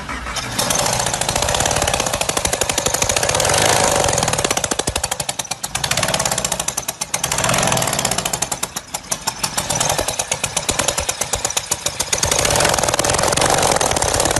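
Power tool hammering rapidly and continuously, in long surges that swell and ease every few seconds, working to free a stuck wheel bolt.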